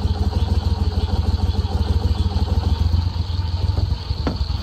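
Go-Devil boat's mud motor running steadily with a low, rapidly pulsing engine rumble. A short knock sounds about four seconds in.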